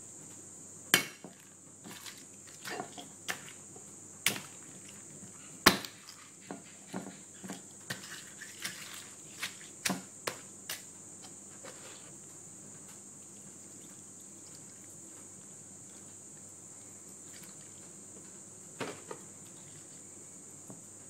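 Scattered knocks and clicks of food being handled on a ceramic plate, a dozen or so in the first half, the sharpest about a second in, then a couple more near the end. A steady high-pitched whine runs underneath.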